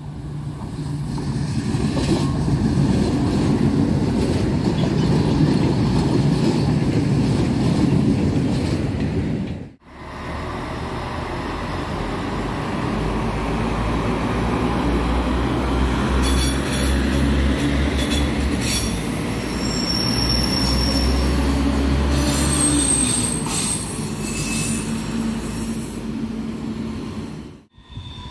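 Diesel train running past, its engine loud and deep, heard in two separate shots. In the second, high-pitched wheel squeal rises over the engine from about the middle.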